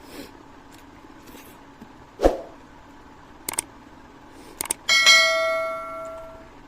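Eating-table noises: a dull thump, a few light clicks, then a piece of metal tableware struck once and ringing out for about a second and a half.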